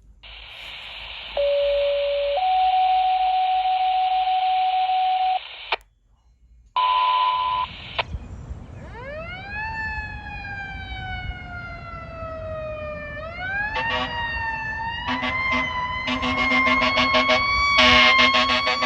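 A radio dispatch tone-out: a hissy channel carries a lower steady tone, then a higher one held a few seconds, and after a short break a second brief alert tone. Then the fire engine's siren winds up, falls slowly and winds up again. From about two-thirds of the way through, the air horns blast several times, the last blast held long.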